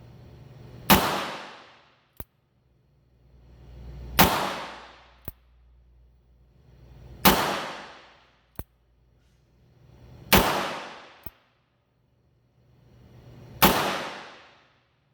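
Pietta 1873 single-action revolver in .44 Magnum firing five shots about three seconds apart, each shot trailing off in an echo over about a second. A small sharp click falls about a second after each of the first four shots, the hammer being cocked for the next shot.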